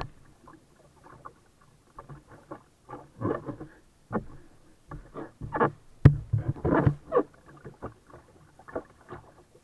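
Kayak paddle strokes and choppy water splashing and slapping against the hull of a sail kayak, in irregular surges with knocks; one sharp knock about six seconds in.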